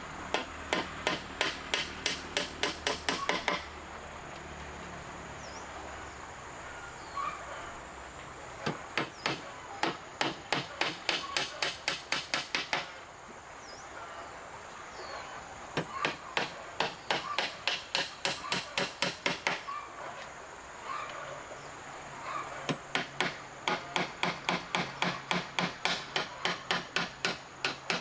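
Rapid, evenly spaced sharp strikes of a tool on a hard surface, about three to four a second. They come in four runs of several seconds each with short pauses between.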